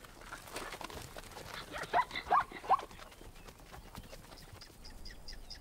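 Plains zebra barking: three short calls in quick succession about two seconds in, over soft hoof steps in the grass.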